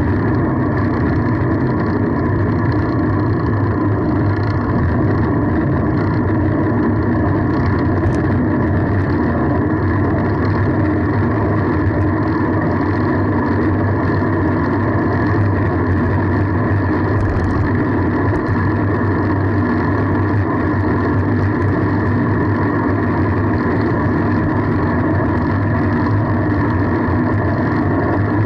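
Steady rushing noise of a moving bicycle ride: wind and road noise on the ride camera's microphone, with no breaks or sudden events.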